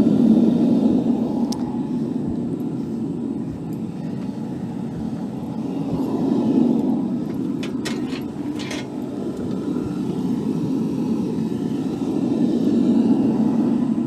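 Gas-fired forge burner running as a furnace, a steady low roar that swells and eases slowly. A few light clicks come a little past the middle.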